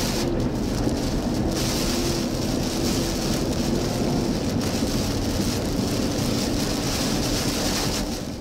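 Hurricane Ida's wind and heavy rain: a steady rushing noise with a faint wavering low tone under it, fading away near the end.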